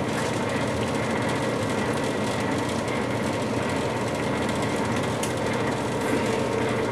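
A fan running with a steady, even hum.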